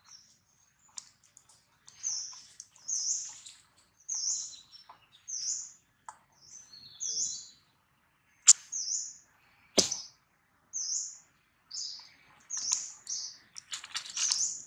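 A small bird chirping over and over, short high chirps repeated a little faster than once a second. Two sharp clicks come partway through, the first the loudest sound, and a crackle of dry leaves near the end.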